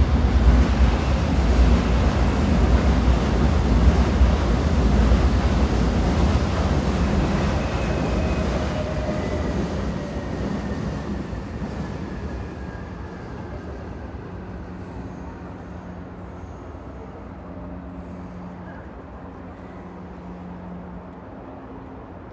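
Train running on rails: a loud rumble that fades steadily over the first dozen seconds or so, with a faint high squeal gliding downward midway. A low steady hum is left under the quieter noise near the end.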